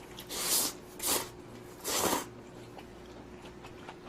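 Three short slurps of spicy instant budae-jjigae ramen noodles and broth in the first couple of seconds, followed by quiet chewing with a few faint clicks, likely chopsticks against the bowl.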